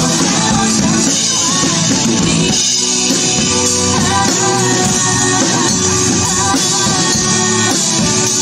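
Acoustic drum kit played along to a pop backing track with a female voice singing the melody, guitar and full band underneath.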